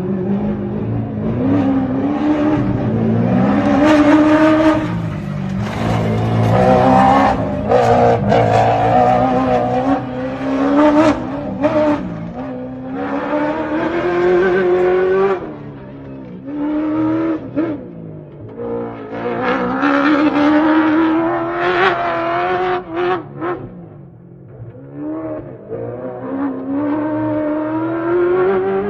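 Ford Raptor rally-raid truck's V8 engine driven hard. Its pitch climbs over and over as it revs up through the gears, then drops back, and it comes and goes in loudness as it runs.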